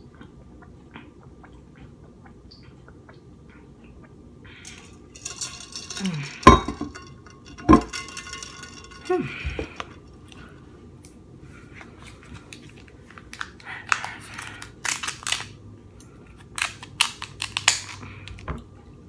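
King crab leg shells being handled and cracked, with utensils knocking on a plate. There are a few sharp knocks around the middle, then a run of crackling, snapping clicks near the end.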